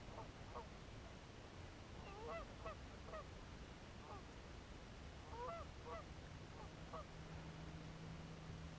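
Faint calls of distant birds in three short runs of several arched calls each, near the start, around two to three seconds in and again around six seconds in. A faint steady low hum comes in about halfway through.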